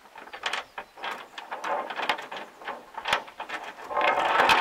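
Steel roller drive chain of a Claas round baler clinking and knocking as it is handled, in a run of irregular metallic clicks. A longer rattling slide comes near the end.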